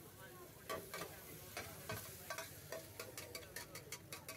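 A metal utensil clinks and scrapes against a steel frying pan as pasta is stir-fried, over a light frying sizzle. The clinks quicken to several strikes a second near the end.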